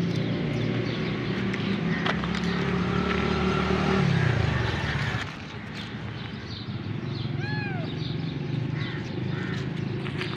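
A motor vehicle's engine runs steadily, then drops in pitch and fades about five seconds in. A little after seven seconds a kitten gives one short mew.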